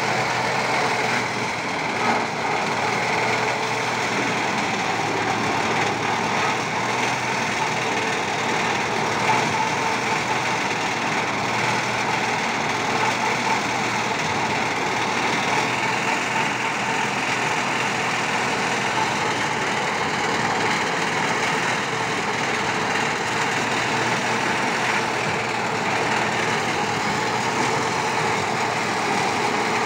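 Tractor-mounted maize harvester at work: the tractor's diesel engine running steadily under load, mixed with the machinery of the harvester cutting the maize stalks, stripping off the cobs and crushing the rest.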